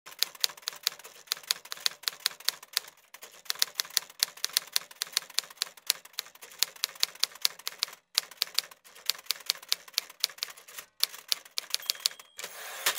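Typewriter key strikes: rapid sharp clacks, about four or five a second, with a few short pauses, as each letter is typed. A brief rushing burst comes just before the end.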